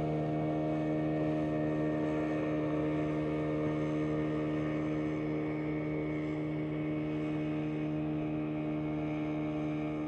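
An engine running steadily at a constant speed, a continuous even hum with no change in pitch.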